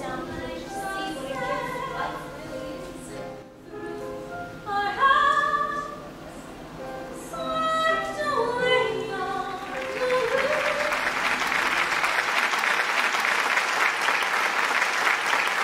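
Singing with musical accompaniment, voices holding and gliding between notes, then audience applause that starts about ten seconds in.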